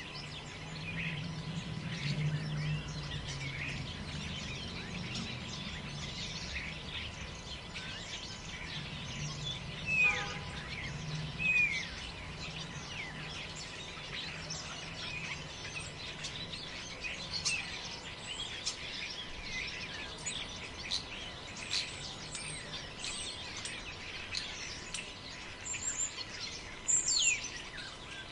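Several forest birds chirping and calling continuously, with a few louder downward-sliding calls about ten seconds in and again near the end, over a low steady hum.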